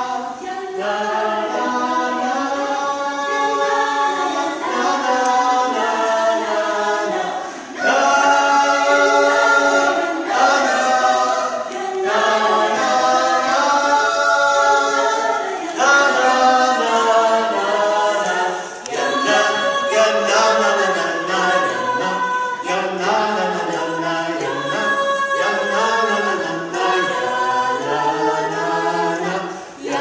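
Four singers performing a cappella in four-part harmony, without words, holding long notes together, with a few brief breaks between phrases.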